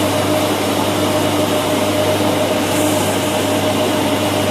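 Combined rice hulling and rice milling machine (type MHR-1500) running steadily: a constant mechanical drone with a steady hum under a broad hiss.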